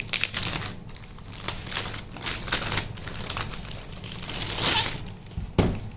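Crinkling and rustling of plastic packaging being handled, with scattered small clicks and knocks, busiest about three-quarters of the way through.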